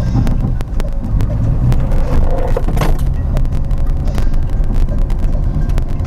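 Car driving slowly over a rough forest dirt track, heard from inside the cabin: a steady low engine drone with many short knocks and rattles.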